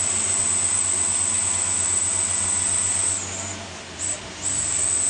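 Diesel engine of a Mitsubishi Fuso Canter dump truck running under load, low and pulsing, as the truck crawls through deep mud, with a steady high hiss over it. The sound drops away for about a second after three seconds in, then returns.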